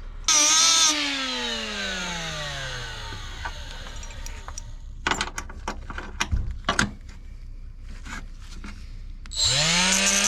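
Handheld electric power tool cutting away a stuck collar: its motor whines in a short burst, then winds down with falling pitch over a few seconds. A few sharp metal clicks and knocks follow, and the motor spins back up near the end.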